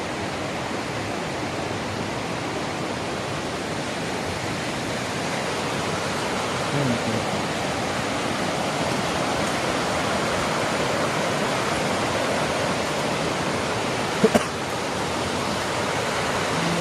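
Steady rushing of flowing water, a stream or waterfall running nearby, with two short knocks about fourteen seconds in.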